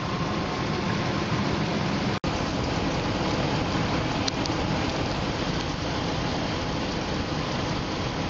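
2003 Dodge Ram 1500's 4.7-litre V8 idling, heard up close in the open engine bay as a steady rushing noise, with a brief dropout about two seconds in. The engine is being run warm so that air can be bled out of the cooling system through the thermostat-housing bleeder.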